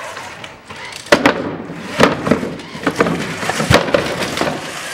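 Competition robot driving over loose, angled plywood slabs: a string of sharp wooden knocks and clatters as the boards shift and drop under the wheels, the loudest near the end.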